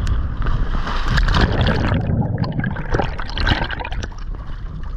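Seawater sloshing and gurgling around a waterproof action camera held at the surface, the microphone washed over by small waves and briefly muffled about two seconds in.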